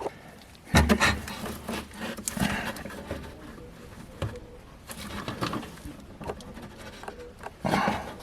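Hand work on a truck during an oil change: a sharp knock about a second in, then scattered clicks, scrapes and rustling of tools and parts being handled, with a louder scuffing sound near the end.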